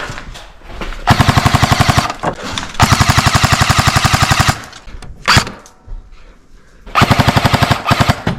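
Airsoft gun firing three full-auto bursts, each a rapid string of shots at roughly a dozen a second: the first about a second long, the second nearly two seconds, the third just over a second near the end. A brief sharp sound comes between the second and third bursts.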